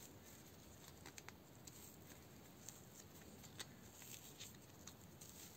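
Faint rustling and a few small, brief scratches of glittery fabric tights being peeled off a plastic fashion doll's legs by hand.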